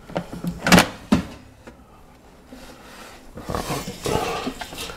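Air fryer basket drawer being pulled open: a couple of sharp clunks about a second in, then the basket scraping as it slides out near the end.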